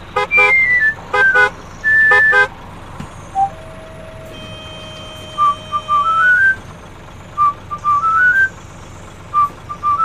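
Van horn honking three short times, followed by a steady tone. A whistled tune of short notes stepping upward repeats through the rest over a background hiss.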